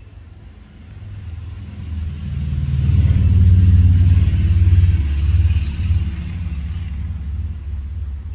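A motor vehicle passing by: a low engine rumble with tyre noise that swells over about three seconds, is loudest near the middle, then fades away.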